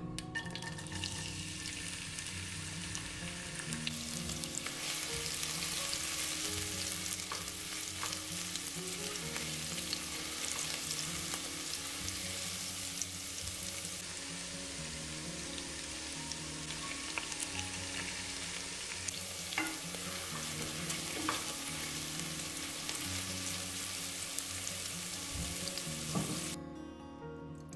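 Sliced shallots sizzling as they fry in hot coconut oil, a steady crackling hiss with a few light clicks. The sizzle stops suddenly near the end.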